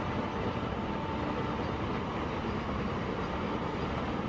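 Double-stack container freight wagons rolling past on electrified track, with a steady rumble of wheels on rails.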